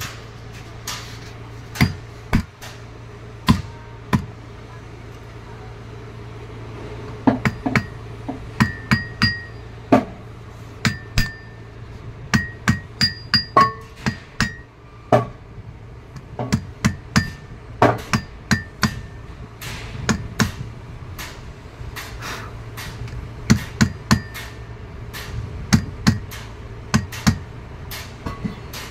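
Hammer tapping an AC compressor's clutch pulley into place on its shaft, struck through a cloth: a run of sharp metal taps in irregular clusters, some leaving a short ring, over a steady low hum.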